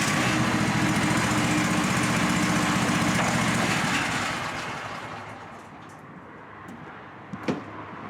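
Scag Windstorm stand-on blower running full out: its 37-horsepower engine and blower fan make a loud, steady rushing blast, described as sounding like a hurricane or a jet engine. About four seconds in the sound dies away over a couple of seconds to a low running level, and a single sharp knock comes near the end.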